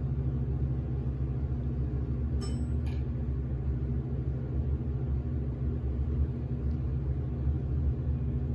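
Stanley hydraulic elevator car travelling down, a steady low hum and rumble, with a short two-part chime about two and a half seconds in as it passes a floor.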